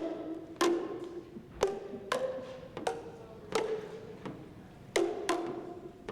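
Tuned percussion played one note at a time: about nine slow, uneven strikes, each a sharp hit that rings out briefly on a pitched note before the next.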